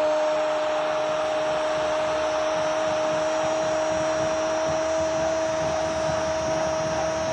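Male football commentator shouting one long, drawn-out goal cry ("goooool") on a single steady high pitch, over the steady noise of the stadium crowd.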